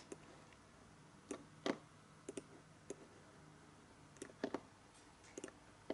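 Faint computer mouse clicking: about ten short, sharp clicks scattered across a few seconds, several in quick pairs like double-clicks.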